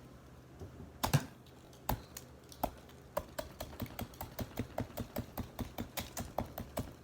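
Swiss Army knife blade tapping and chipping at a bowl of ice: a few separate sharp strikes, then a quick, even run of light taps, about four a second.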